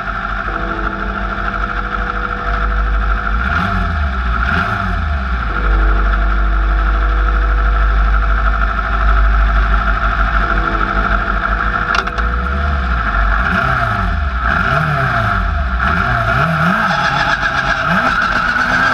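Four-wheel-drive 1600 class autocross buggy's engine idling at the start with throttle blips: the revs rise and fall twice about four seconds in, then several more times in quick succession during the last few seconds.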